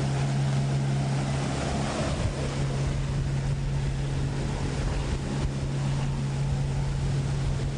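Motor yacht running at speed: a steady low engine hum under the rush of water from its hull and wake.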